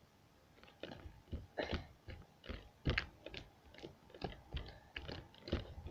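Slime being squished and worked in the hands, giving a quiet run of irregular sticky clicks and squelches, two or three a second.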